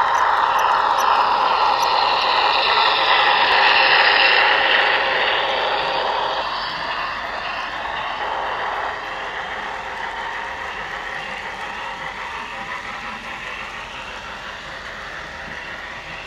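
Model freight train running past on the layout track: a steady noise of the wheels rolling on the rails. It is loudest in the first few seconds as the locomotive goes by and fades gradually as the freight cars pass.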